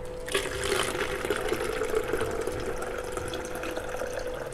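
Water poured from a plastic tub into a tall stack of plastic bottles, splashing as the bottle column fills. The pour starts about a third of a second in and then runs steadily, over a faint steady hum.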